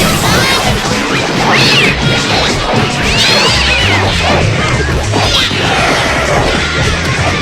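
Cartoon fight-cloud brawl sound effect: a continuous jumble of crashes and thwacks mixed with cat-like yowls and squeals rising and falling every second or so.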